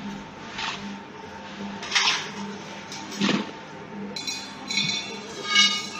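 Three sharp glassy clinks about a second apart: pieces of loose asphalt paving mix knocking against a glass vacuum flask as they are put into it by hand. Background music comes in about four seconds in.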